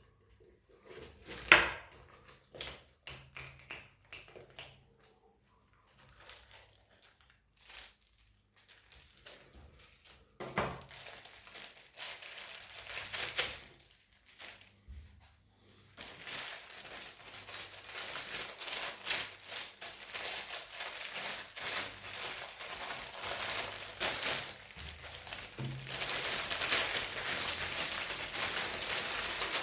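Crinkling and rustling, as of paper or plastic being handled and crumpled, after a single sharp knock about a second and a half in. Scattered small clicks at first, then continuous crinkling that grows louder about halfway through and again near the end.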